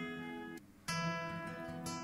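Background music: solo acoustic guitar playing held, plucked notes, with a short break just over half a second in before the next notes sound.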